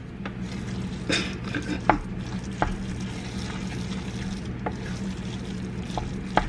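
Wooden spoon stirring and scraping a vegan chorizo and rice mixture in a stainless steel pot, with a few sharp knocks of the spoon against the pot, while the food fries in the pan.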